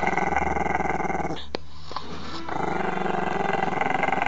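Maltese–Shih Tzu puppy growling in a long, steady growl. It breaks off for about a second a little before the middle, then picks up again.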